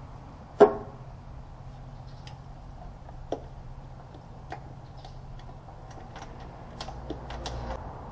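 A metal hand tool clanks once against the engine with a short ring, about half a second in, followed by scattered light clicks and taps of tools on metal parts.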